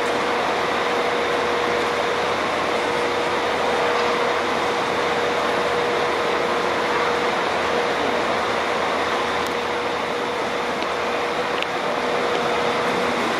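Manchester Metrolink trams at a junction: a steady mechanical hum with one constant mid-pitched tone over a broad, even background rush.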